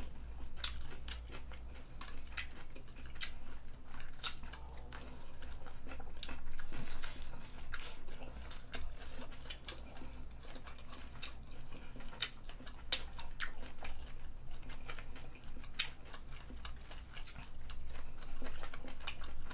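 Close-miked chewing of seafood bulgogi and kimchi: a steady run of small wet clicks and smacks from two people eating, over a low steady hum.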